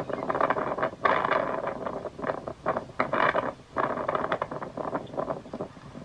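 Strong gusty wind buffeting the microphone, rising and falling in uneven surges with a brief lull a little past halfway.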